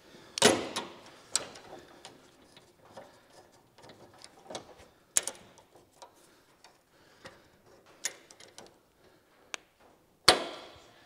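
A few sharp metal clicks and knocks of clamps being fitted to a steel chassis rail, spaced irregularly, with the loudest near the end.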